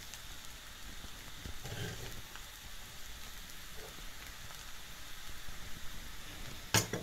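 Fried rice sizzling faintly in a kadai as a wooden spatula stirs it, with a few soft scrapes and taps, and a sharper knock near the end.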